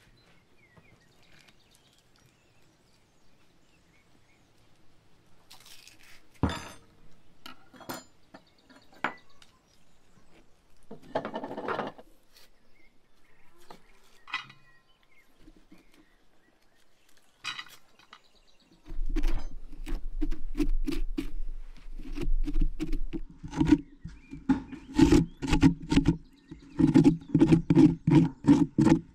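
Scraping the seeds and stringy flesh out of a raw pumpkin: fast, repeated, loud scraping strokes against the inside of the shell from about two-thirds of the way in. Before that come scattered knocks and clinks as the cut lid is handled.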